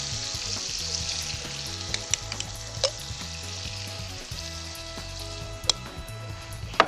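Butter, lemon juice and cream sizzling in a frying pan while being stirred, with a few sharp clicks of the utensil against the pan, the loudest near the end.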